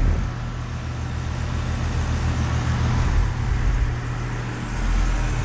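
2021 Goodman heat pump outdoor unit running just after starting up: a steady compressor hum with the condenser fan, under a low rumble that comes and goes.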